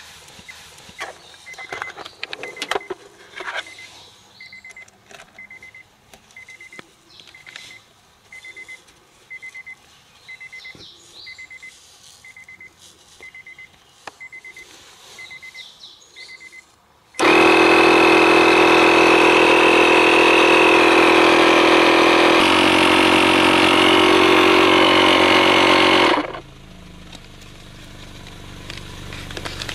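The tyre repair kit's electric air compressor runs loudly and steadily for about nine seconds, its tone shifting slightly partway, then cuts off abruptly. Before it starts, hands click and rustle while fitting the hose to the tyre valve, and a high electronic beep repeats about every 0.8 s.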